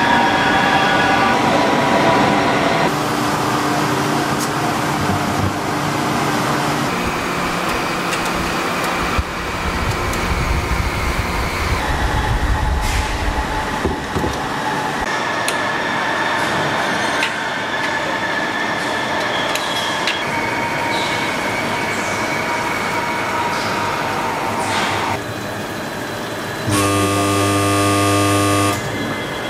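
Factory machinery running in a crankshaft plant: steady, loud mechanical noise and hum whose tones change every few seconds, with a deep rumble a little before the middle. Near the end, a loud buzzing tone sounds for about two seconds, then stops.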